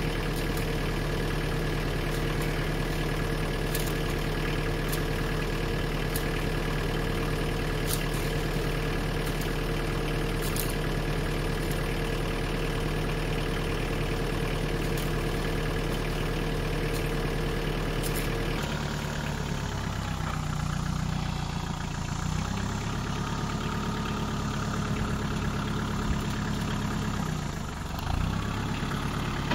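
Compact tractor's diesel engine running steadily. About two-thirds of the way through, the sound changes abruptly, and after that the engine pitch rises and dips, with a brief drop in loudness near the end.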